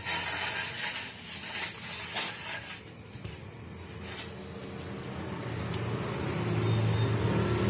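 Light handling noise and a few clicks, then a low engine hum that grows steadily louder over the last few seconds.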